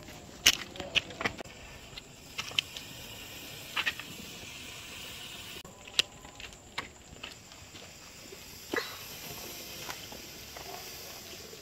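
Scattered light clicks of a lighter and of small smoke-ball fireworks being handled. From about nine seconds in there is a faint, high, steady hiss as one smoke ball catches and burns.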